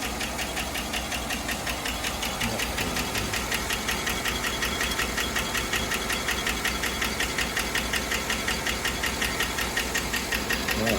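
An engine or motor running steadily, with a rapid, even ticking.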